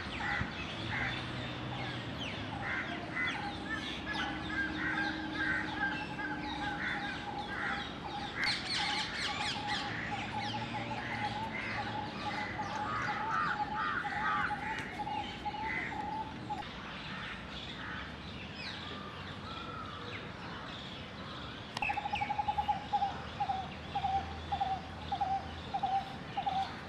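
Outdoor bird chorus: many short chirps from several birds, with crows cawing among them. A fast pulsing trill runs through much of it and comes back louder near the end.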